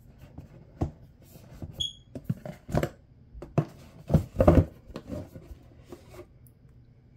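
Hands working the lid off a rigid cardboard box: irregular scrapes, rubs and knocks as it is wiggled loose, the loudest a little past four seconds in, with one short squeak about two seconds in.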